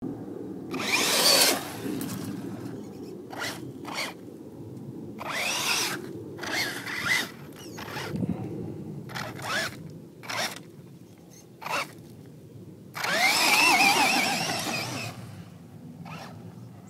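Electric motor of a radio-controlled truck whining in repeated throttle bursts, its pitch rising and falling, while the tyres spin in loose sand. The longest and loudest burst comes about thirteen seconds in.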